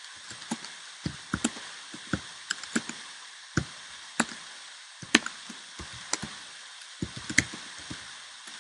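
Computer keyboard typing: irregular key clicks, sometimes singly and sometimes in quick runs of two or three, over a steady background hiss.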